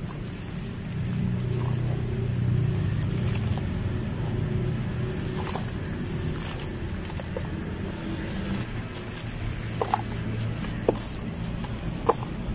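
Clumps of wet sand being squeezed and crumbled by hand into shallow water in a plastic tub: soft crunching and crumbling with light splashes, and three sharp clicks near the end. A steady low hum runs underneath.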